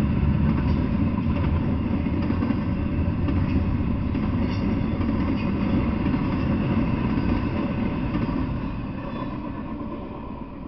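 Double-stack intermodal freight train cars rolling past, a steady low noise of wheels on the rails. It fades over the last couple of seconds as the end of the train goes by.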